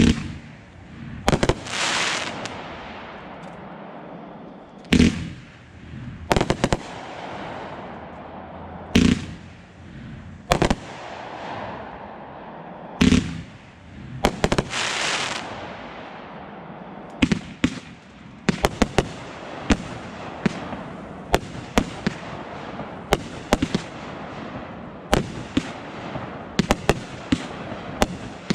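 Aerial fireworks going off: sharp booms a few seconds apart, some followed by a drawn-out hiss, then from about halfway through a rapid string of crackling pops.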